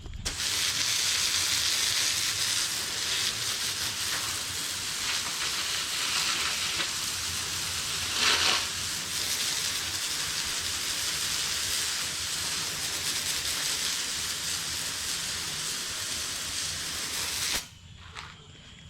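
Garden hose spray nozzle spraying water onto a porch: a steady hiss of water jet and splatter, with a brief louder surge about halfway through, shut off abruptly near the end.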